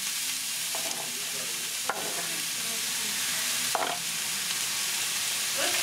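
Shredded cabbage sizzling steadily in a hot frying pan as it is stirred with a spatula, with two sharp knocks about two and four seconds in.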